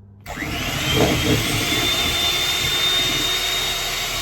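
Electric mixer starting up a moment in and running at steady speed, beating butter and icing sugar into icing; its motor whine rises quickly and then holds one high pitch.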